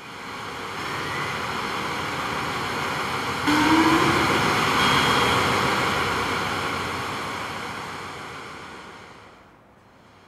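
Synthesizer noise from a sound-art piece: a rushing wash like surf that jumps louder about a third of the way in, where short rising tones sweep up, then slowly fades away near the end.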